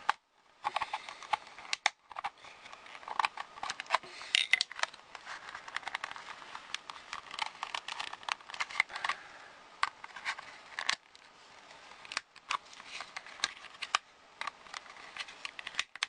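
Irregular sharp clicks and small cracking snaps of a plastic AC adapter case being pried apart along its seam with a flat screwdriver.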